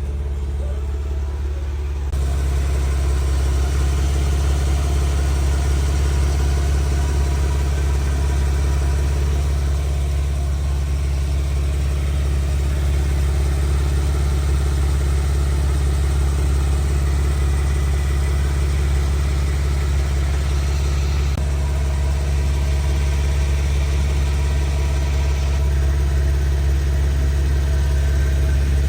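Jeep engine running steadily at idle, a strong low hum that gets louder about two seconds in.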